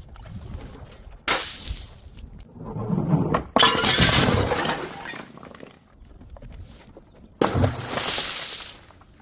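Glass bottles shattering: three crashes, about a second, two and a half seconds and seven seconds in, each followed by the tinkle and crunch of broken glass scattering. The middle break is the loudest and longest.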